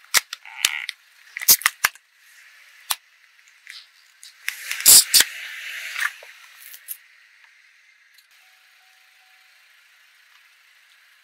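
Plastic tubs of cleaning gel cracking and splitting under a car tyre, with a string of sharp cracks in the first three seconds and the loudest crunching and squelching about five seconds in as the gel squeezes out. After about seven seconds only a faint hiss remains.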